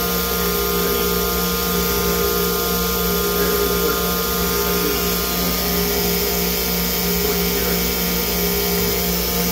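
OKK VP400 5-axis CNC vertical machining centre running: a steady mechanical hum with several constant whining tones from its spindle and drives.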